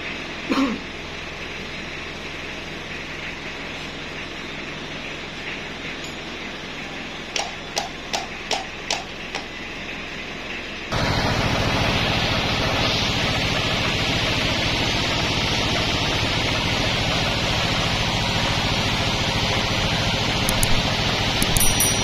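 Steady running noise of band sawmill machinery, with a series of about six short knocks seven to nine seconds in. About eleven seconds in it jumps to a louder, steady running noise, with a few light clicks near the end.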